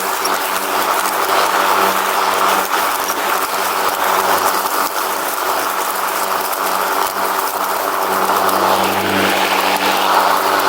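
Riding lawn mower engine running steadily under way, with rattling and clicking over the engine hum.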